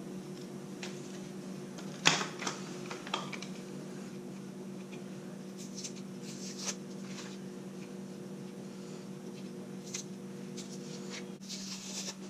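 Blue painter's tape being picked at and peeled off the plastic lenses of spray-painted goggles, giving short crackles and rips now and then over a steady low hum.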